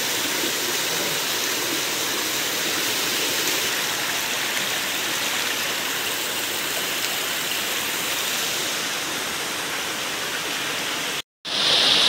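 Steady rush of water flowing over the rocks of a boulder-strewn stream. Near the end it cuts out for a moment and comes back louder and closer, as water spilling down a small rock cascade.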